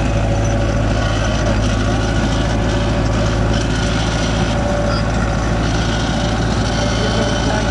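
Belarus 510 tractor's diesel engine running steadily with a strong low hum as it pulls a potato planter through the soil.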